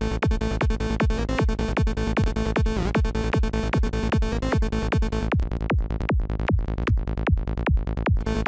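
Electronic psytrance loop playing: a steady four-on-the-floor kick and rolling bass under a percussive synth lead being made in Native Instruments Massive. About five seconds in, the upper part of the sound turns choppy, cutting in and out, for about three seconds, then fills back in.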